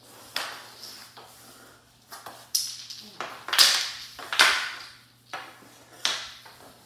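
Floor-hockey stick smacking a puck and the hardwood floor: a series of sharp smacks, roughly one a second, each ringing briefly in the room, the loudest about three and a half seconds in.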